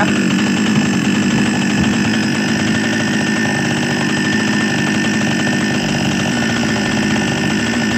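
Shinzo two-stroke chainsaw engine idling steadily, running normally again now that the part behind its hard starting has been replaced.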